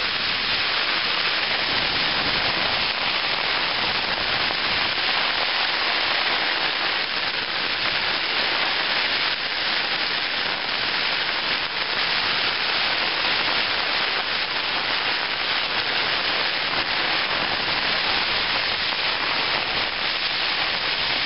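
Heavy rain pelting a tent's flysheet, heard from inside the tent: a dense, steady patter of drops on the fabric.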